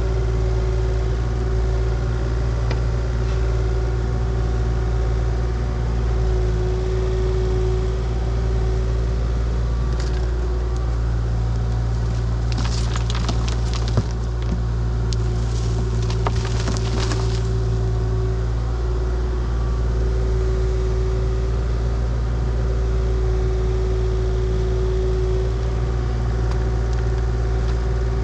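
Diesel engine of a compact earthmoving machine running steadily. A few seconds of crunching and crackling with a sharp knock come in the middle.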